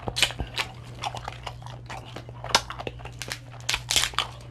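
Close-up eating sounds: a person chewing and biting into Dungeness crab, with wet smacking and the crack and crunch of shell in quick irregular clicks. A steady low hum runs underneath.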